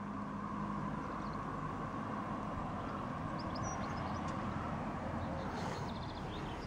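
Steady hum of a motor vehicle engine running, with a few short bird chirps about halfway through.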